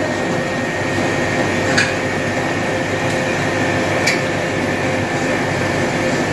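Steady drone of running kitchen equipment, with a faint high hum over it. A couple of light clicks come about two and four seconds in.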